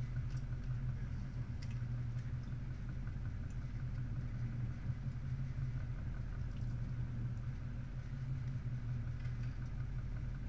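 Charter fishing boat's engine running steadily at low speed, a constant low drone with no change in pitch.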